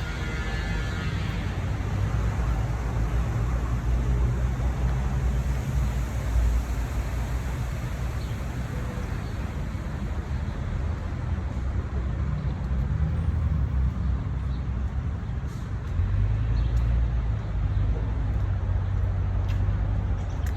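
Low, steady rumble of road traffic, swelling and easing over several seconds.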